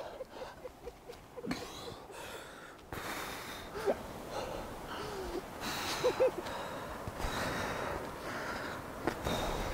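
A rock climber breathing hard and forcefully through a strenuous move, with short strained grunts and whimpers; the breaths come in repeated noisy bursts that get heavier after about three seconds.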